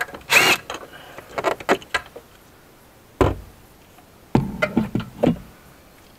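DeWalt cordless drill with a 10 mm socket running briefly to back out a bolt, followed by clicks of the loose bolt and knocks as the drill is handled and set down on the trunk floor.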